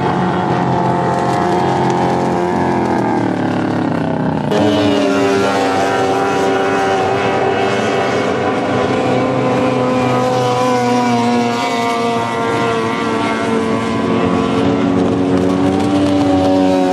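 Racing outboard motors running at speed as race boats pass on a river. One engine's pitch drops as it goes by about three seconds in, then a louder engine comes in at about four and a half seconds and holds a steady high whine.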